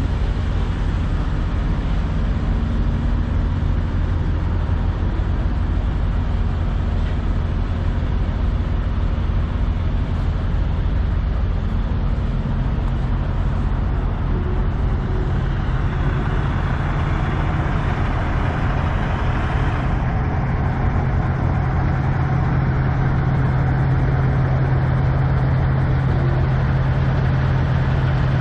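Kenworth semi truck's diesel engine idling steadily, a loud low rumble whose hum grows stronger about twelve seconds in and again about twenty seconds in.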